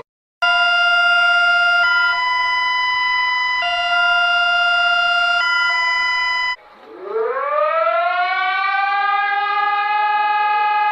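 Emergency alert alarm tones: a steady buzzing tone switching back and forth between two pitches about every two seconds, then cutting at about six and a half seconds to a siren that winds up from low pitch and holds a steady wail.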